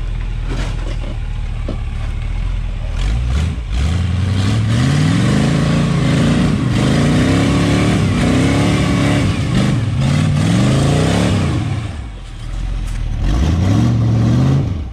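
A rock-crawling off-road buggy's engine revs up and down again and again as it works up a rocky ledge. It eases off briefly near the end and then revs once more. A few sharp knocks, like tyres or chassis hitting rock, come in the first few seconds.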